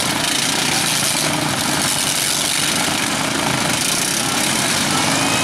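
Several racing riding lawn mowers' small engines running together in a steady, dense mix.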